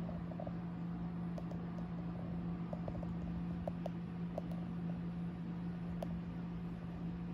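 Steady low hum over an even background hiss, with a few faint, short ticks scattered through it.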